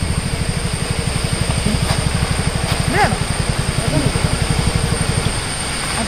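Motor scooter engine running while riding, heard as a fast, even low pulsing.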